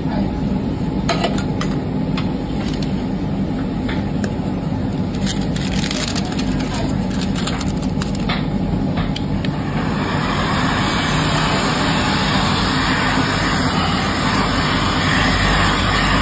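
A steady low rumble runs throughout. In the first ten seconds it is broken by sharp clinks of a metal spoon against a clay dizi pot and its lid. From about ten seconds in, a steady rushing hiss of hot air sets in, from an electric heat gun aimed at the lidded pot.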